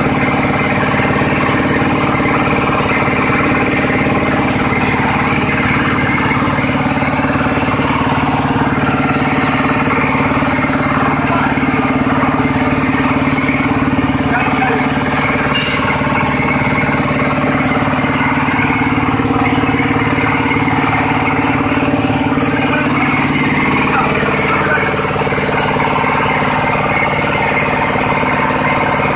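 Single-cylinder horizontal diesel engine running steadily under load, belt-driving a rotary drum sifter for shredded coconut coir.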